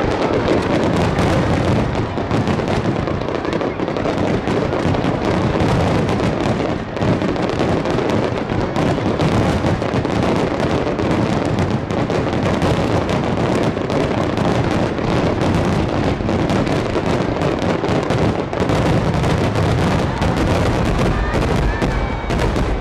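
Aerial firework shells bursting in a rapid, unbroken barrage, the bangs overlapping so closely that they merge into one continuous loud rumble: the massed finale of a fireworks display.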